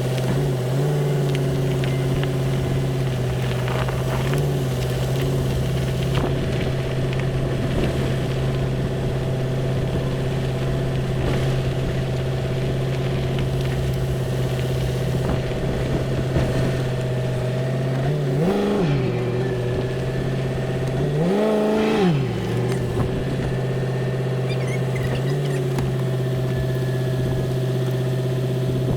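Engine running steadily at a low idle, revved up briefly twice in the second half, each rev rising and falling back to idle.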